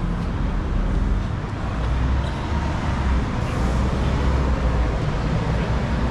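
Busy city-street traffic: cars and buses passing on a wide avenue, a steady low rumble of engines and tyres.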